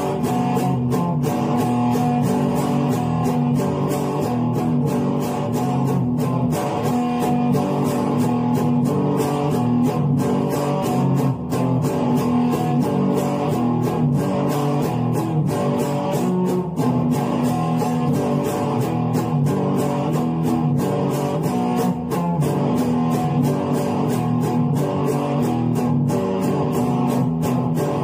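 Electric guitar being played continuously, notes picked and strummed in an even rhythm.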